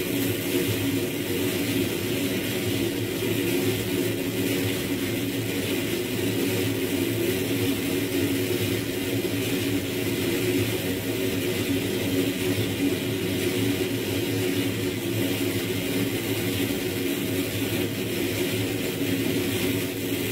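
Dense, steady electronic drone: layered synthesized tones over a bright hiss, generated by the frakMSP sound-processing suite and run through reverb, holding steady throughout.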